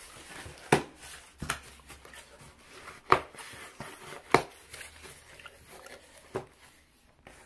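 A cardboard delivery box being pulled open by hand: a continuous rustle and scrape of cardboard flaps, broken by about five sharp snaps or knocks spread through.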